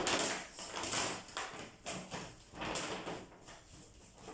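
Grocery bags being handled and rustled, in several short swishes about a second apart.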